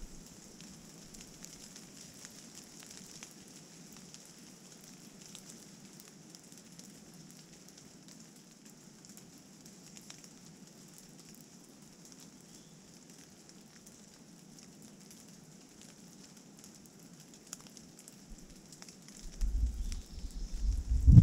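Rain pattering on leaves and the trail, a steady fine crackling hiss of drops. About nineteen seconds in, gusts of wind buffet the microphone with a loud low rumble.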